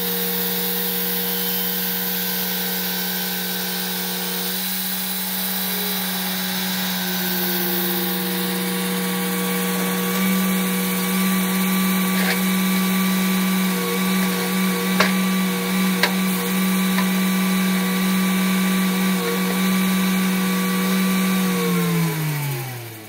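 Clarke 350 XP portable bandsaw mill running at a steady speed as its saw head cuts along a log, a loud, even hum with a few sharp ticks in the second half. Near the end its pitch and level fall away.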